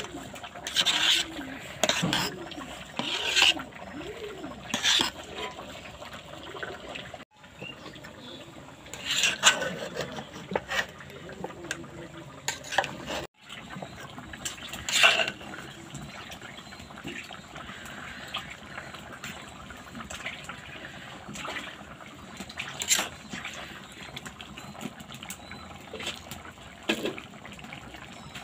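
Spatula turning cooked polao rice in a pot: soft wet stirring with sharp scrapes and knocks against the pot every second or two.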